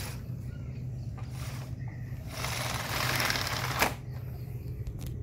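Pleated mesh mosquito screen sliding along its door track, its pleats folding with a rustling, rattling noise that builds for about a second and a half, then a sharp click as the screen's bar meets the frame. A few light clicks follow near the end.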